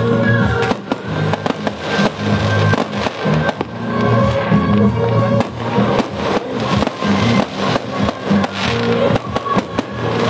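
Fireworks going off in quick, irregular bangs and crackles, over music with a steady pitched melody.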